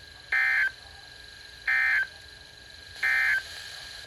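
Three short, buzzy digital data bursts of an Emergency Alert System end-of-message (SAME EOM) signal, each about a third of a second long and spaced about 1.4 s apart. They mark the end of the broadcast warning.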